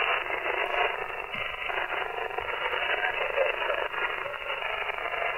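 Shortwave receiver audio from a web SDR tuned to the 27 MHz CB band in upper sideband: a steady band-limited static hiss with faint, garbled voice-like sound in it.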